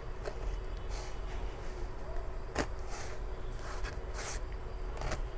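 Packing tape being peeled and cut off a cardboard box, a few short rasping rips and scrapes with a sharp tap about two and a half seconds in as the box is handled, over a steady low hum.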